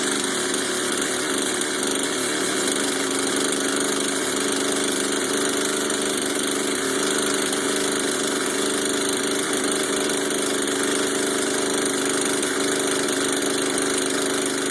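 Gasoline two-stroke chainsaw engine running steadily at fast idle on half choke, its pitch and level holding even without revving.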